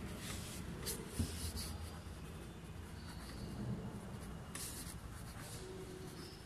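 Pen writing on a lined notebook page: a run of short, scratchy strokes with pauses between them, and a light knock about a second in.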